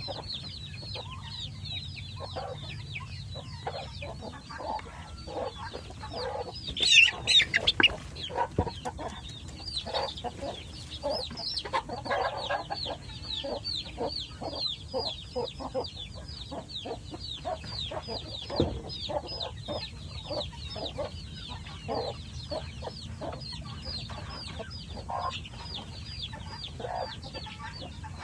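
A flock of chickens clucking, over a constant run of high, short, falling peeps. About seven seconds in there is one loud squawk, the loudest sound in the stretch.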